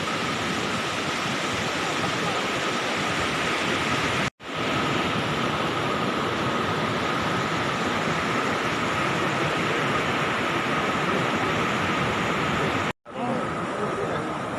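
Steady rushing noise of wind and surf at the shore, broken twice by abrupt brief cut-outs.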